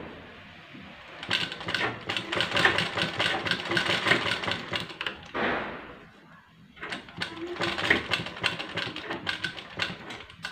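Sewing machine stitching in two runs of fast, even clicking, each about four seconds long, topstitching close to the edge of a blouse's back-neck cut-out. The brief stop between the runs is the machine halting at a corner so the fabric can be turned with the needle left in.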